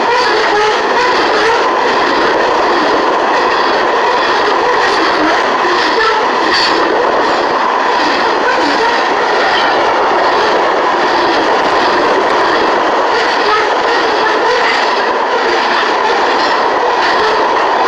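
Covered hopper cars of a fast BNSF grain train passing close by: a loud, steady rush of steel wheels on the rails, with clicks of the wheels over the track.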